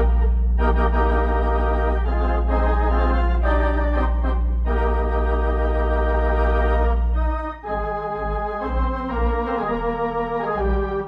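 Organ music: sustained chords over a long held deep bass note, changing about two-thirds of the way through to a livelier passage with short, repeated bass notes.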